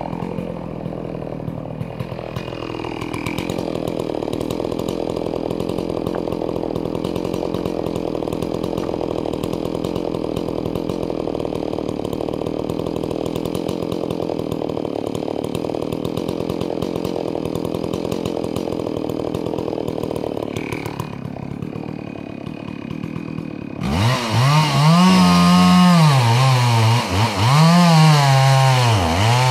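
Chainsaw idling steadily for about twenty seconds, then opened to full throttle near the end, much louder, its pitch dipping and recovering as it bogs down cutting into the trunk of a messmate eucalyptus, a hardwood.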